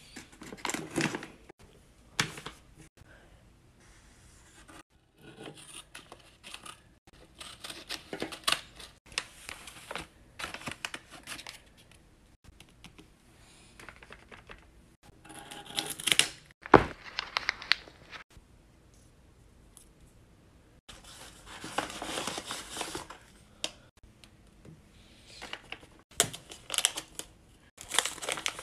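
Homemade paper blind bag being handled, opened and unwrapped by hand: bursts of paper rustling, crinkling and tearing with short quiet pauses between them, and one sharp click a little past the middle.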